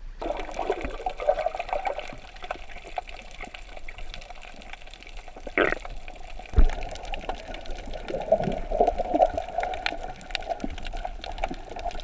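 Water sloshing and bubbling around a camera at and under the surface while snorkeling, with many small clicks and crackles throughout. A sharp low knock, the loudest sound, comes a little past the middle.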